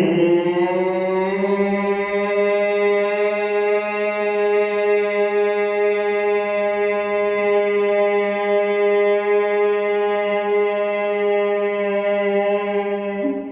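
A man humming on a long exhale in bhramari pranayama (bee breath): one steady hum held for about thirteen seconds. Its pitch rises slightly as it begins and then stays level.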